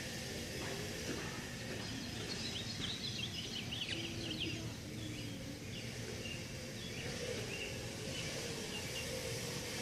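Birds chirping in quick, high runs, most busily about three to four and a half seconds in, over steady outdoor background noise.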